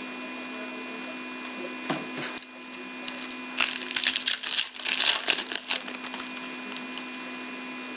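Foil trading-card pack wrapper crinkling and tearing in the hands: a run of crackling that starts about three and a half seconds in and lasts about two seconds. A steady electrical hum runs underneath.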